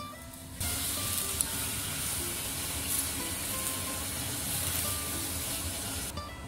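Sweet-potato vermicelli cooking in a wok of hot water at a hard boil: a steady hiss and bubbling that cuts in suddenly about half a second in and stops just before the end.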